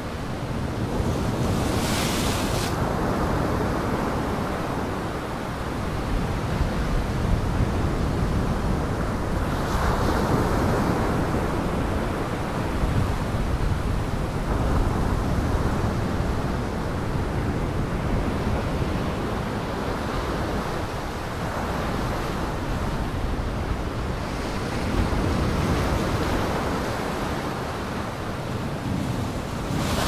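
Heavy storm surf: large waves breaking and churning, with wind buffeting the microphone. The noise swells and eases every few seconds as waves break.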